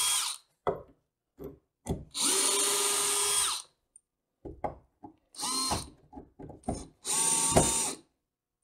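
Electric drill-driver run in repeated bursts while taking apart a wooden model railroad helix. It begins with a few quick clicks, then gives runs of about a second and a half, half a second and a second, each a whine that rises as the motor spins up, with short blips between.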